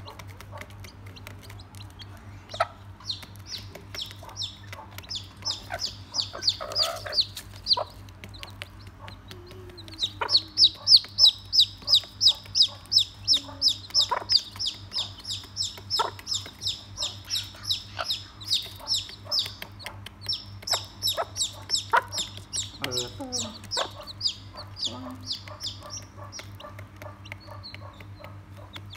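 Newly hatched chicks peeping in long runs of short, high, falling notes, several a second, loudest in the middle. A few low clucks from the mother hen and sharp taps of her beak pecking feed on a cardboard floor come in between.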